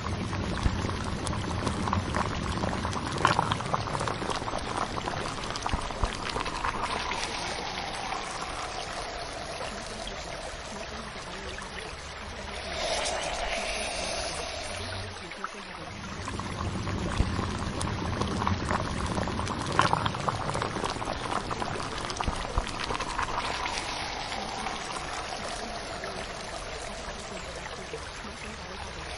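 Steady water sound, like pouring or bubbling water, with a pattern that repeats about every 16 seconds: a looped water ambience.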